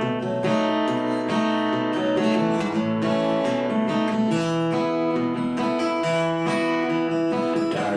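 Acoustic guitar strummed and picked, playing the instrumental intro to a country song.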